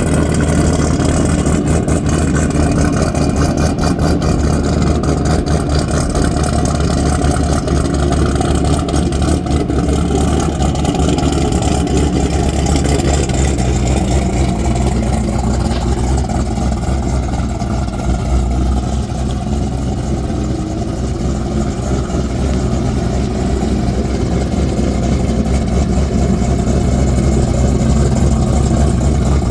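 A vehicle engine runs loud and steady close by for the whole stretch. Its pitch drifts slowly up and down about midway.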